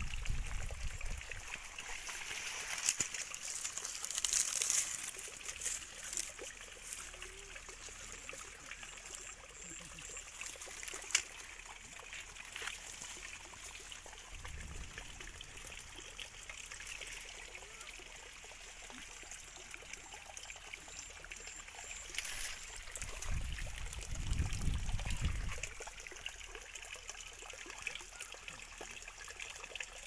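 Steady trickling water, an even hiss of running water, with a few soft low rumbles about halfway through and again later on.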